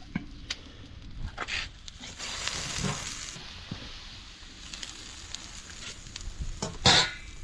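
Food frying in a hot pot, sizzling as it is stirred, with scattered scrapes and clicks and a short louder burst near the end.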